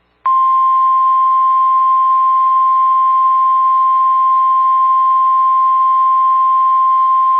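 NOAA Weather Radio 1050 Hz warning alarm tone: a single loud, steady beep that starts a quarter second in and holds without a break. It is the alert that a severe thunderstorm warning is about to be broadcast.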